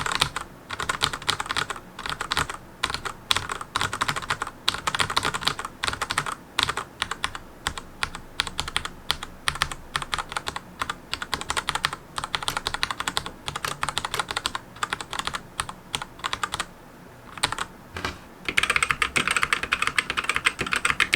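Fast typing on a Monstargear MK308 keyboard with Gateron optical switches: a steady stream of key clicks and bottom-outs on PBT keycaps. The typing pauses briefly a little after halfway through, then resumes denser and brighter toward the end.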